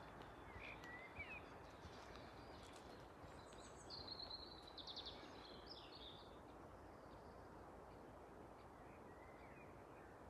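Faint woodland ambience: a steady low hiss with a few small bird calls, the clearest a quick trill about four seconds in, plus a short chirp early and a faint call near the end.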